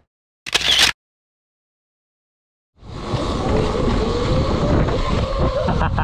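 Dead silence at an edit, broken by a loud half-second blip about half a second in. From about three seconds in, an electric dirt bike riding along a dirt trail: steady riding noise with a faint wavering motor whine.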